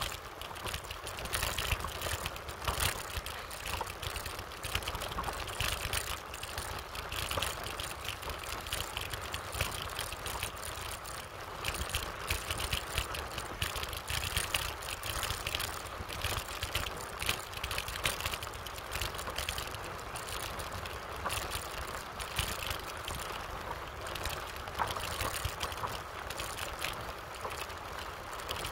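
Wind buffeting the microphone and the rattle of a bicycle rolling fast over a rough dirt road, with many small clicks and knocks from the bumps.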